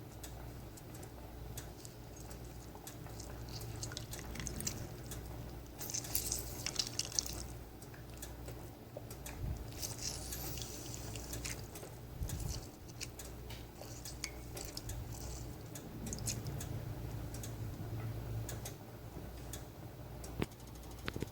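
Kitchen handling sounds of tea being made: liquid running into a cup in two short bursts, about six and ten seconds in, amid small clicks and clinks of a cup and utensils, over a low steady hum.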